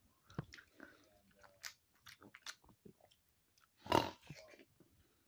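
A person chewing fruit close to the microphone, with wet smacking and small crunches. A louder burst comes about four seconds in, as a hand goes up to the mouth.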